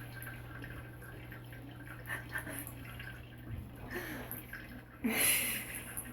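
Water dripping and trickling from a faucet, with small scattered drips and a short louder burst of noise about five seconds in.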